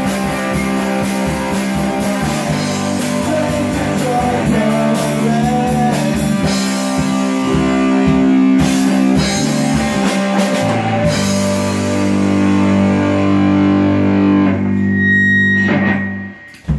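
Live rock band playing an instrumental passage on electric guitars and a drum kit, with dense drumming and a bending lead line. About eleven seconds in, the drums drop out and a held chord rings on. The chord fades quickly near the end, and a single sharp thump follows.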